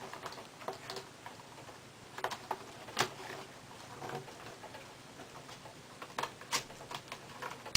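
Scattered light clicks and knocks of a Toshiba Satellite M505 laptop's battery latches being slid and its battery pack being pulled out. The sharpest clicks come about 3 seconds in and again near the end.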